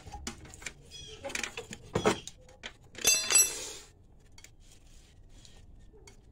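Metal clicks and clinks of new brake pads being shifted in the caliper bracket's steel clips, with a short high-pitched squeak about three seconds in.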